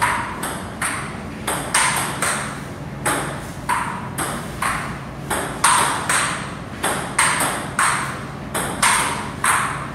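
Table tennis rally: a celluloid ball clicking sharply off paddles and table, about two hits a second. A low steady hum runs underneath.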